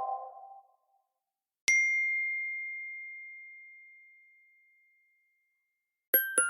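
iPhone alert tone: a single high, bell-like ding about two seconds in, ringing out and fading over about three seconds. The tail of the previous tone dies away at the start, and the next tone's quick run of chiming notes begins near the end.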